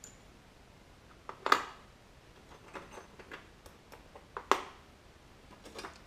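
Small metal hand tools clinking and clicking as they are handled and set down. There are two sharp clinks with a brief ring, about a second and a half in and again near four and a half seconds, and lighter clicks in between.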